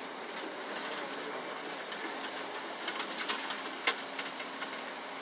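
Small metallic clicks and rattles, busiest about three seconds in, with one sharp click near four seconds, over a faint steady hum.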